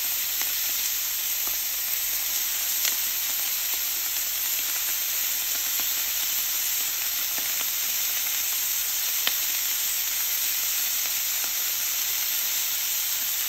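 Thick-cut bacon wrapped around stuffed jalapeños and pepperoncini sizzling on a hot Blackstone flat-top griddle: a steady, even sizzle with scattered small pops of rendering bacon fat, one sharper pop about nine seconds in.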